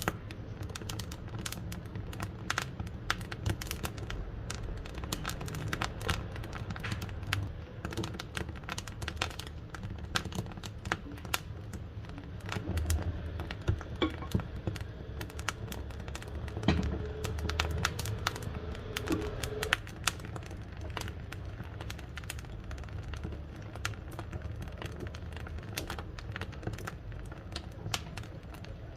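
Wood fire burning in a wood-burning cookstove: irregular sharp crackles and pops over a steady low rush of flame. A faint thin whistle comes in between about 16 and 20 seconds in.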